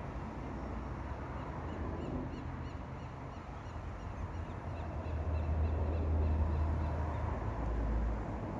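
Outdoor lakeside ambience: a steady wash of background noise with a bird calling in a quick series of short high notes from about two to five seconds in. A low rumble swells over the second half and fades near the end.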